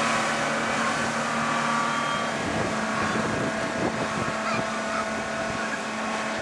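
Wind rushing over the microphone above a steady engine hum that holds one pitch throughout.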